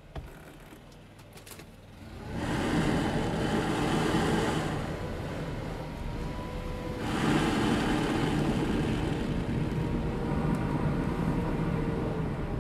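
Gas-powered leaf blower starting up about two seconds in and then running steadily, heard from inside the bus through the door as it is blown along the door seal to find an air leak; its sound dips for a moment midway and rises again.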